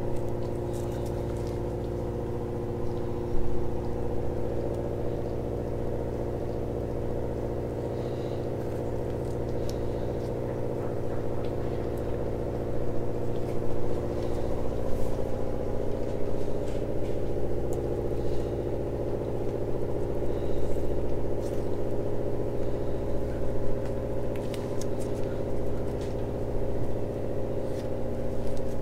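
A machine running with a steady, unchanging hum. Faint light ticks and scrapes come and go over it, in step with a wooden stick spreading and scraping epoxy putty.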